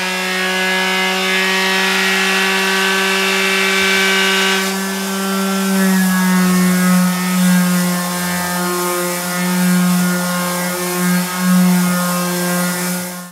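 Electric hand sander running steadily with a low motor hum while it sands an old epoxy bar top with 80-grit paper, scuffing the old coat before a new one goes on. The hum wavers slightly from about halfway through as the sander is pressed and moved across the surface.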